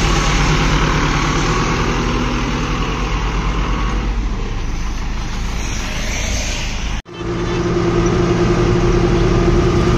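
Diesel engine of a JCB backhoe loader running steadily at idle. About seven seconds in the sound breaks off for an instant at a cut, then the same engine is heard from inside the cab as the machine drives, with a steadier, more tonal drone.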